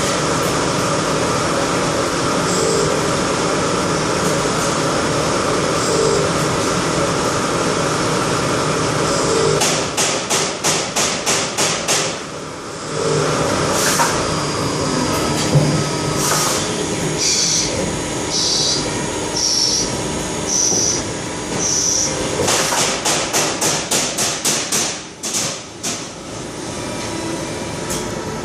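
DMG CTX 310 ecoline CNC lathe running a machining cycle: a steady machine noise, broken twice by runs of rapid clicking, with short high tones in between.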